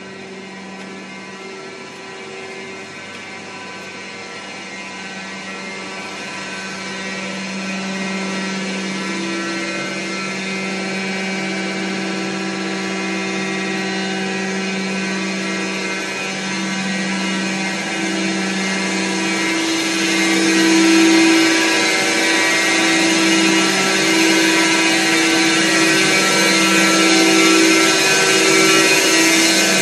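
Steady hum of running hydroelectric turbine-generator sets (ČKD Blansko Kaplan turbines and generator), several steady tones over a machine rumble, growing louder and louder, loudest in the second half.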